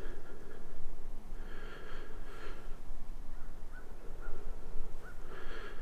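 A man breathing hard through his mouth close to the microphone, with two louder breaths about a second and a half in and near the end.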